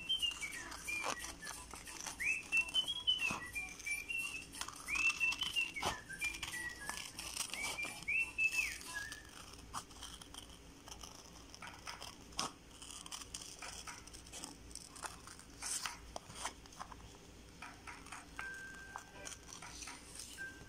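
A person whistling a tune in four short phrases that rise and step back down. After about nine seconds the whistling stops and scissors snip through tape-covered paper in a run of short cuts.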